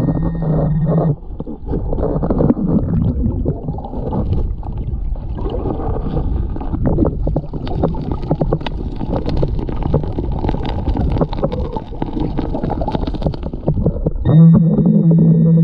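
Garrett waterproof pinpointer buzzing steadily underwater, sounding on a metal target, for about the first second. It then gives way to the crunching and scraping of creek gravel and sand being dug out underwater, with many sharp crackles, and the pinpointer's buzz comes back near the end.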